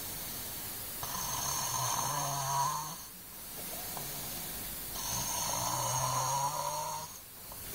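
An overweight boy snoring in his sleep: two long snores, each about two seconds, starting about a second in and about five seconds in, with quieter breathing between them.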